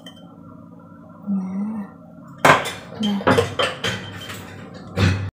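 A glass jar clinking and knocking against other kitchen containers as it is handled and put away. A sharp knock comes about two and a half seconds in, then a quick run of clinks and knocks, with a louder knock near the end before the sound cuts off suddenly.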